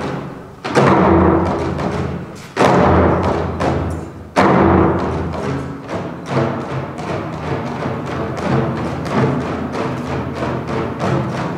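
Drum-led music: three heavy booming drum strokes about two seconds apart, each ringing out over held tones, then a fast, steady drumbeat from about halfway through.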